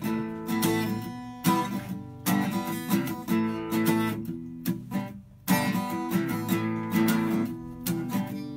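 Acoustic guitar strummed solo, repeated chord strokes ringing on, with a brief break a little past halfway before the strumming picks up again.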